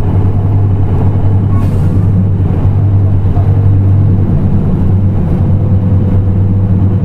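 Nissan Diesel RA274 city bus's diesel engine running with a steady low drone, joined by a faint steady whine from about halfway through.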